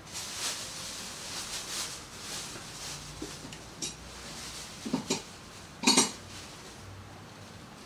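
Steel socket and small hand tools handled against metal: soft rattling first, then a few sharp metallic clinks, the loudest a double clink about six seconds in, as the socket is fitted onto the transmission mainshaft nut.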